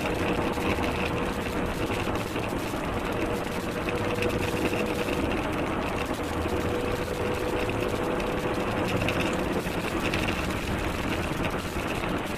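Car driving: steady engine and road noise, with a faint steady whine that fades out about ten seconds in.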